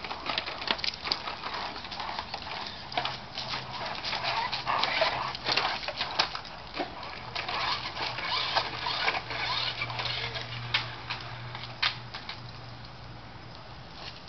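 A Great Dane mouthing and dragging a plastic radio-controlled toy car on a concrete driveway: many sharp clicks, scrapes and rattles of plastic and claws on concrete, thinning out near the end. A low steady hum runs underneath through the middle.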